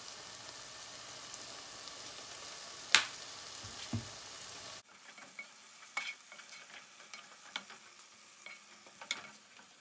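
Chopped tomato, onion and green pepper frying in a pot, a steady sizzle, with one sharp click about three seconds in. Midway the sizzle drops suddenly, and a wooden spoon stirs and scrapes the pot with scattered small clicks.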